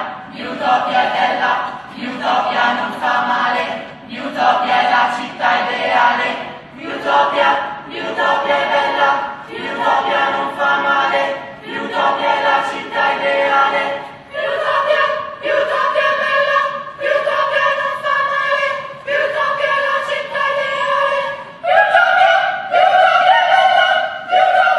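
Voices singing a cappella in chorus, in short phrases at first and then in long held notes from about halfway through, stepping up to a higher held note near the end.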